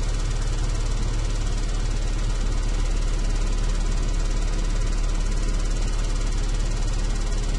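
A big electric fan running steadily: an even rush of moving air over a constant low motor hum.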